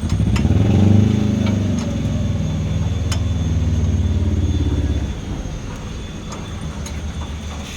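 A motor vehicle's engine running close by, starting suddenly, rising a little in pitch, then holding steady for about five seconds before dying away. Light metallic clicks are heard now and then.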